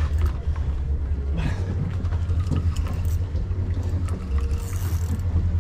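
A spinning reel being cranked in against a hooked fish, with light scattered clicks and rattles over a steady low rumble.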